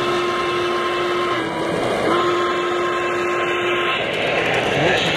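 Model steam locomotive's sound-system whistle giving two long steady blasts, the first ending about a second and a half in and the second starting about two seconds in, over the running noise of the train on the track.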